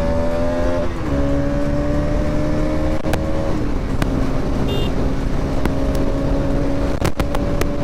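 Bajaj Pulsar NS200's single-cylinder engine running under way, heard from the rider's seat over steady wind and road noise. Its note dips in pitch about a second in and again near four seconds in, then holds steady, with a few sharp ticks near the end.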